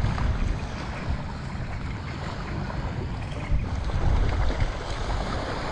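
Wind buffeting the microphone on a beach, a low rumbling rush with stronger gusts at the start and again about two-thirds of the way in, over the steady hiss of small waves at the shoreline.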